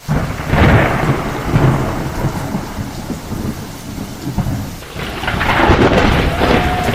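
Storm noise: a deep rumble under a steady rain-like hiss, swelling near the start and again from about five seconds in.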